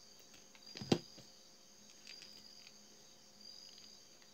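Metal pliers and a beading needle being worked through pearl beads: one sharp click about a second in, over a faint, steady high-pitched trill.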